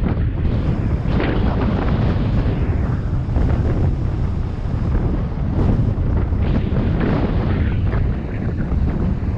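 Wind buffeting the microphone of a bike-mounted camera as the bicycle rolls along a paved road: a loud, steady low rumble that swells and eases in gusts.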